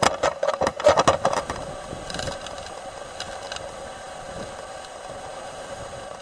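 Hurricane-force eyewall wind with a rapid, uneven rattling and knocking for the first second and a half, then a steadier rushing noise.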